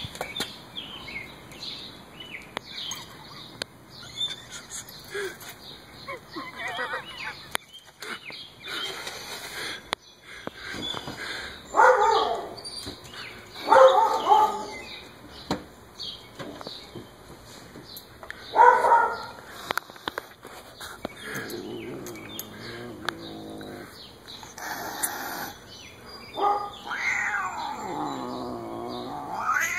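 Siamese cat yowling: three short, loud yowls near the middle and one long, wavering yowl that bends up and down in pitch near the end, with a few fainter calls between.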